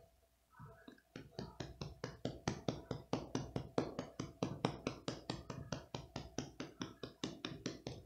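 A hand rapidly rubbing and scratching a cat's belly fur, an even run of short rustling strokes at about five a second that starts about a second in.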